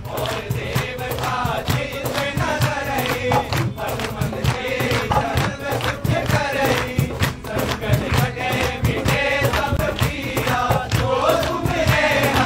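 A group of voices singing a devotional chant together, with acoustic guitar and hand-drum accompaniment and steady rhythmic hand-clapping.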